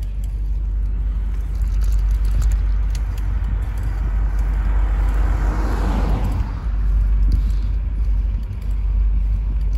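A car passes close by; its tyre and engine noise swells to a peak about six seconds in, then fades. Under it is a steady low rumble.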